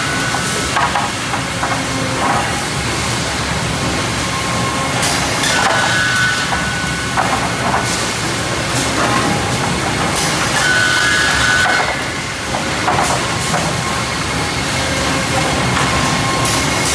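Cleereman optimized sawmill edger and its roller infeed running: loud, steady machinery noise. A high steady tone with knocks and clatter comes back about every five seconds as boards are fed through.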